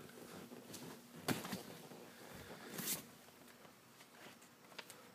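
Faint movement noise from someone walking aboard a boat: soft rustling with a few light knocks, the clearest a little over a second in and about three seconds in.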